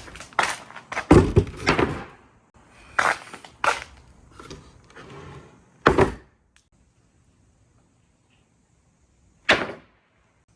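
Glass marbles running down a handmade marble run: a quick string of clacks, then single knocks as they drop and hit the track, with a short rolling rumble. There is a loud knock about six seconds in, a quiet gap, and one more knock near the end.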